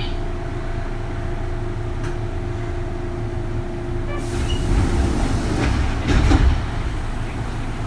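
Running noise inside the motor car of a Kintetsu 3200 series train with a Mitsubishi early GTO VVVF inverter. A steady hum of two tones stops about four seconds in. A louder rumble and rush of noise follows, peaking about six seconds in.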